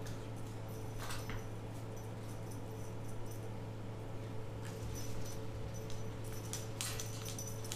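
Faint rustling swishes and light taps as a feather wand toy is swung and kittens pounce at it on a hardwood floor, a few soft strokes scattered over a steady low hum.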